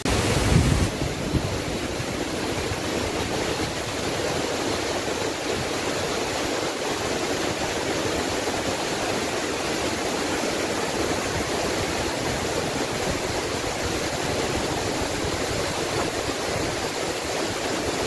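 Waterfall's falling water rushing, a steady even noise throughout, with a brief low rumble in the first second.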